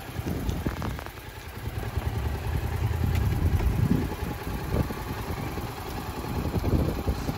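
Motorcycle engine running at low revs, an uneven low rumble.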